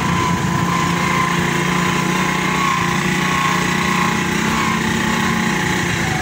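Small motorcycle engine running steadily while being ridden.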